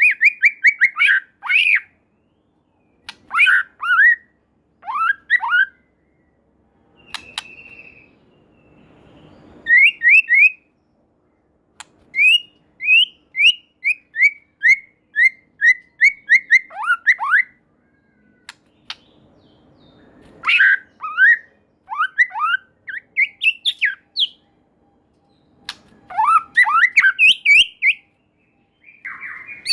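White-rumped shama singing in bursts of rapid, sliding whistled and chattering notes, phrase after phrase with short pauses between them.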